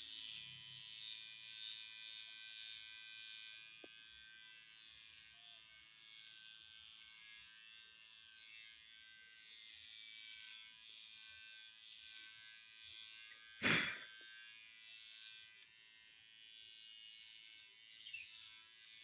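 Cheap electric shaver running with a steady high buzz as it shaves leg hair. A single sharp knock comes about two-thirds of the way through.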